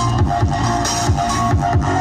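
Bass-boosted dubstep track playing through a Samsung Giga Party Audio MX-T70 tower speaker. Deep kick drums that fall in pitch hit about twice a second over a sustained bass line and a higher melody.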